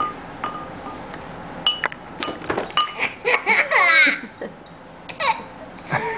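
A spoon strikes a bowl about seven times in the first three seconds, each hit a short ringing clink. Then a baby laughs for about a second, with a shorter vocal sound after it.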